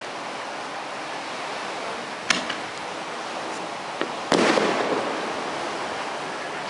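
Aerial fireworks bursting in the air: a sharp crack about two seconds in with a brief crackle after it, then a louder bang a little after four seconds whose echo fades over about a second, over a steady hiss.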